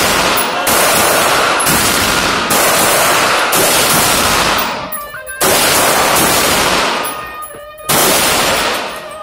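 Gunshots fired one at a time at a shooting range: six shots about a second apart at first, then two more spaced a few seconds apart. Each shot is followed by a long echoing decay.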